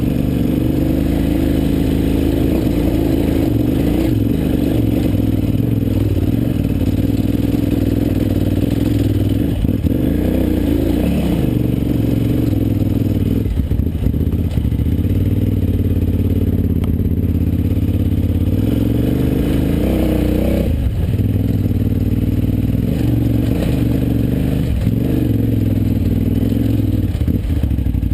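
KTM 950 Adventure's V-twin engine running as the motorcycle rides a rocky dirt track, its pitch rising and falling with the throttle several times. There are occasional clattering knocks from the bike going over stones.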